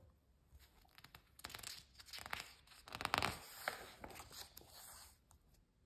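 Faint rustling and crinkling of a picture book's paper page being turned, loudest about three seconds in.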